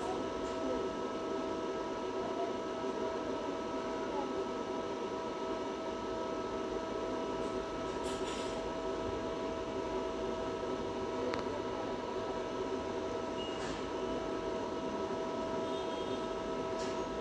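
Steady electrical hum with several constant high whining tones, broken by a few faint clicks.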